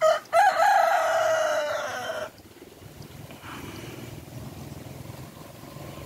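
A rooster crowing once, loud and close: a short opening note, then a long drawn-out note that falls slightly in pitch and cuts off sharply after about two seconds.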